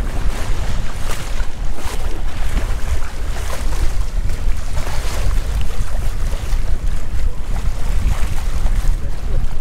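Wind buffeting the microphone with a heavy low rumble, over choppy water washing along the hull of a moving sailboat.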